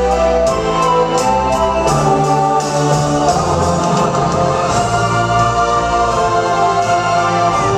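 Stage-show music playing loudly: held organ-like chords that change every second or so, with voices singing over them.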